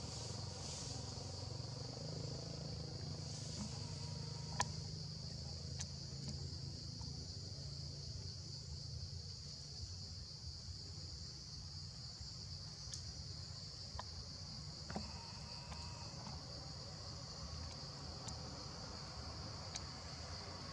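Steady, high-pitched chorus of insects chirring without a break, with a few short sharp clicks scattered through it, the loudest about four and a half seconds in.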